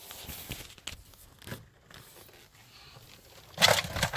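Rustling and scraping of parts being handled while working on the car's steering column, with one louder short scrape about three and a half seconds in.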